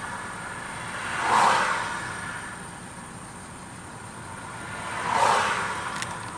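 Two vehicles pass by in turn, each a whoosh that swells and fades over about a second, over steady road noise.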